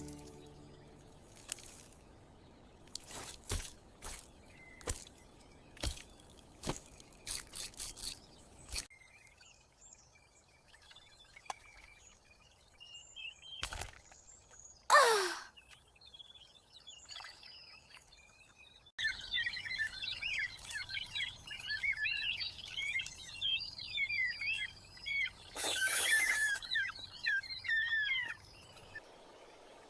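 Birds chirping and twittering, thickest in the second half. Light taps and knocks come in the first several seconds, with a short falling whoosh about halfway through.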